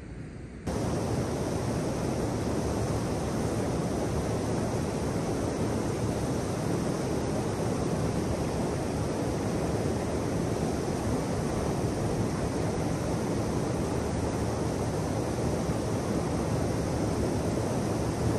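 Steady rush of water pouring over a dam weir, cutting in suddenly under a second in.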